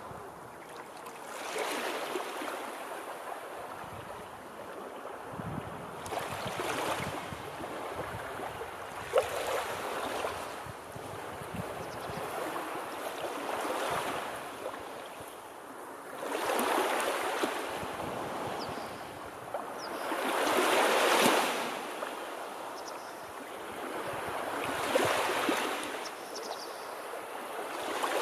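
Gentle sea surf: small waves breaking and washing ashore, swelling and fading about every four seconds. A brief sharp click sounds about nine seconds in.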